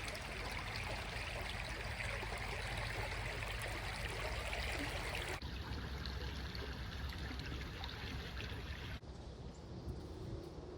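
Stream water running in a steady rush, which drops abruptly in level about five seconds in and again near nine seconds, becoming fainter.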